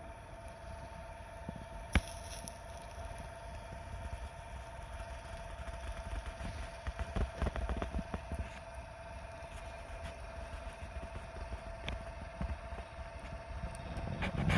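Steady hum of an electric spit rotisserie motor turning a chicken, with a wood fire crackling in scattered clicks and a sharp snap about two seconds in. Low wind rumble on the microphone underneath.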